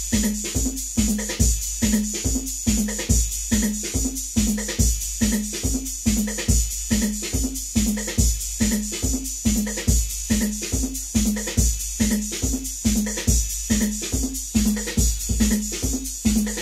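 Electronic techno from a Roland TR-808 drum machine and a Roland Jupiter-6 synthesizer. A steady drum-machine beat of about two kicks a second with bright high ticks runs under a short repeating low synth riff.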